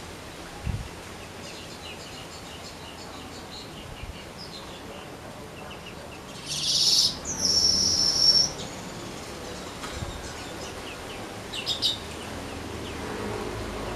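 A young weaver bird (manyar) singing. Soft scattered chirps lead to a loud, buzzy rush of song about six and a half seconds in, which ends in a high, held wheeze lasting about a second. A few sharp chirps follow near the end. It is a young bird only just beginning to sing fluently.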